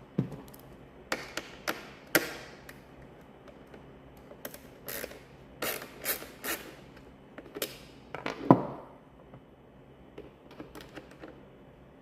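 Irregular sharp clicks and taps of small parts, screws and plastic cluster pieces being handled and set down, with one heavier knock about eight and a half seconds in.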